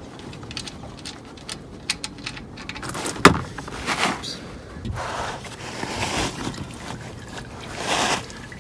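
Hand work under a car during an oil change: scattered clicks and handling noises, with one sharp knock a little over three seconds in, and swells of rushing noise.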